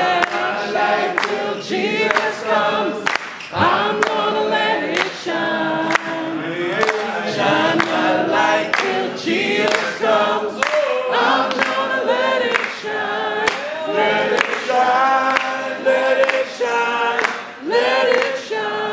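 A group of people singing together, with hand claps keeping a steady beat.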